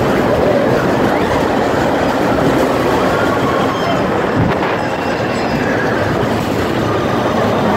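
Mine-train roller coaster cars of Big Thunder Mountain running fast along the track, a steady loud rumble and rattle of wheels on rail.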